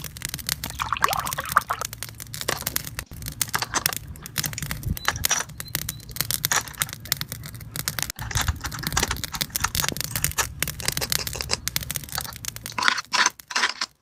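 Plastic toy pieces being handled: a dense run of small clicks, taps and rustles as plastic toy food skewers are picked up and set down on a plastic tray, with a louder cluster near the end.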